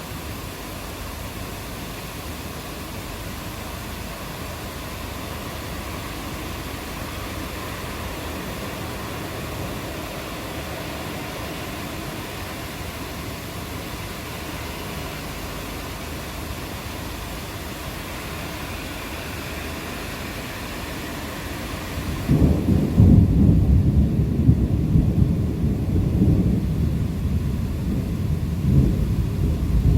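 Thunderstorm: steady rain hiss, then about two-thirds of the way in a loud, low rumble of thunder breaks in suddenly and keeps rolling.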